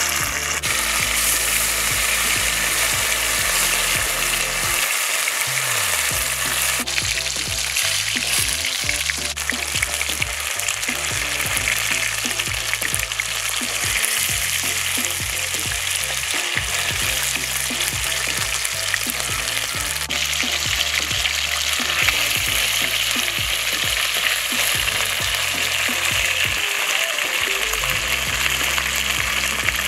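Spice-marinated fish slices deep-frying in hot sesame oil in a kadai: a steady, loud sizzle of bubbling oil throughout.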